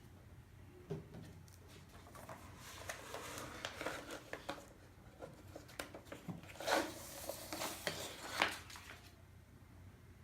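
Hands handling a vinyl record and its packaging: soft rustling with light clicks and taps, busiest in the second half and dying away shortly before the end.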